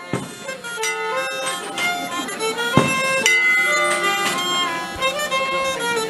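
Fiddle and a reed instrument playing a traditional tune together over a steady drone note. Two sharp knocks sound, one at the start and one about halfway through.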